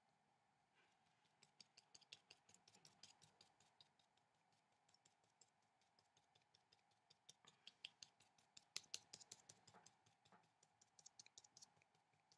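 Paintbrush dabbing tempera onto watercolour paper, a faint run of quick light taps of the bristles, several a second, starting about a second and a half in with a short lull around the fourth second.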